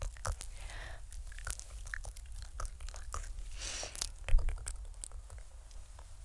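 Close-up wet mouth sounds: a run of tongue and lip clicks, with a breathy hiss a little after three and a half seconds in and a louder pop just after four seconds.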